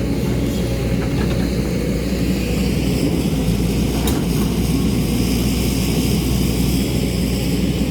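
Excavator diesel engine running steadily under load, with a single knock about four seconds in.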